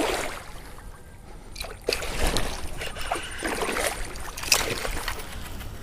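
Water splashing and sloshing in irregular bursts, with a sharper splash or knock about four and a half seconds in.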